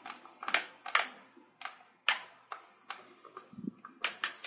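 Fingers and nails handling a small cold-porcelain clay doll as a glued arm is pressed onto its body: a handful of short, sharp clicks and taps at irregular intervals.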